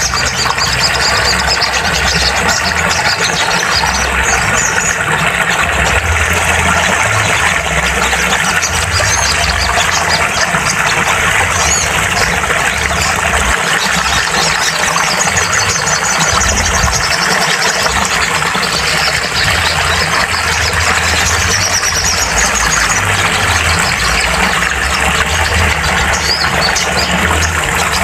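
Sogon (sunbird) song played for bird therapy: short, rapid, high chirping trills every few seconds over a constant loud hiss and a low pulsing hum.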